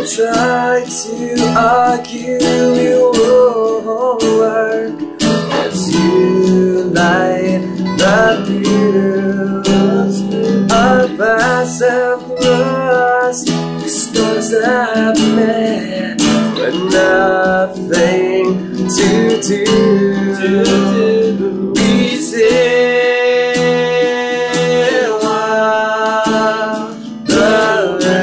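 Two guitars, one of them acoustic, strummed together while a man sings the melody of an acoustic rock song.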